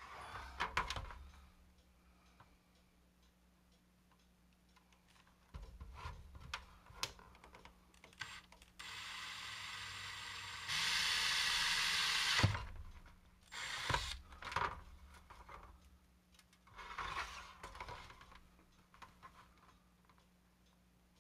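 Cordless drill running for about three and a half seconds as its twist bit bores a hole through the model kit's plastic deck, getting louder partway through. Before and after it come scattered clicks and knocks of the drill and plastic parts being handled.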